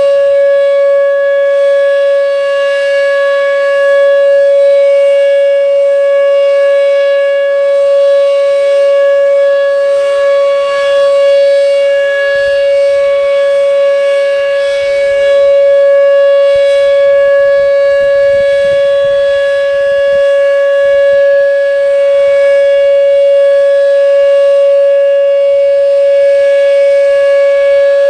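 Whelen WPS-2807 electronic outdoor warning siren sounding its Alert signal, the steady tone used for tornado warnings: one loud, unbroken 560 Hz tone that neither rises nor falls.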